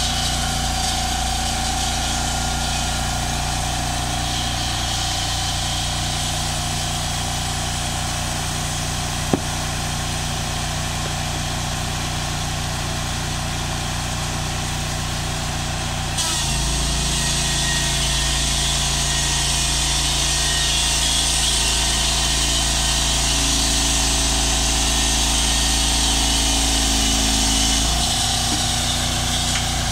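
The engine of a portable band sawmill running steadily, with a single sharp click about nine seconds in. A little past halfway the sound changes abruptly to a deeper, slightly louder engine note, and it switches back just before the end.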